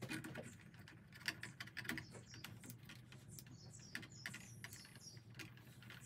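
Faint, irregular small clicks and rustles of hands handling stripped copper electrical wires and a plastic wire nut (marette).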